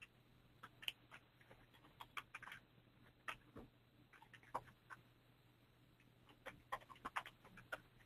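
Near silence: a faint steady low hum with a dozen or so faint short clicks at irregular intervals.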